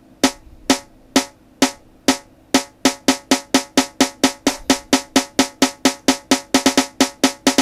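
Programmed snare-drum roll build-up played back from FL Studio: single snare hits about two a second speeding up steadily into a fast roll of roughly eight hits a second.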